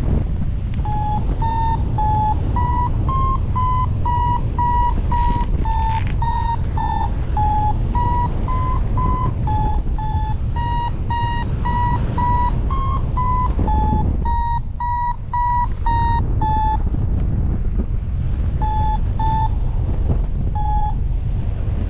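Paragliding variometer giving its climb tone: short beeps about two a second, pitch wavering slightly, which stop about three quarters of the way through and return as a few scattered beeps near the end. Strong wind buffets the microphone underneath.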